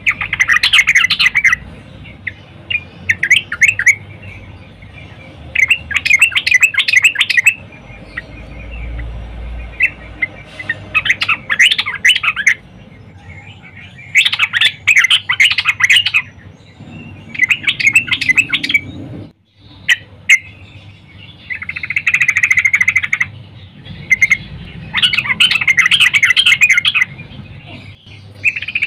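Yellow-vented bulbul (trucukan) singing in repeated bouts of quick, bubbly chattering notes, each about one to two seconds long with short pauses between. The uploader presents it as a female calling to draw males.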